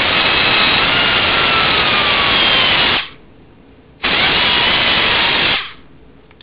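Air-powered LEGO engine spinning at high speed on compressed air: a loud hissing rush with a high whine that slides slowly down in pitch. It runs for about three seconds, stops, then runs again for about a second and a half.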